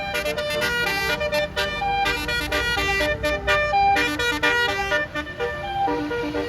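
Bus basuri telolet air horn playing a fast melody of short notes that step up and down, over the low rumble of the bus.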